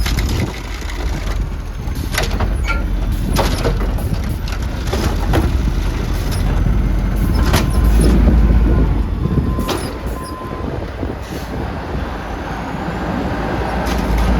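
Garbage truck's engine running with a heavy low rumble that swells louder about eight seconds in, with several sharp metallic clanks and knocks through it.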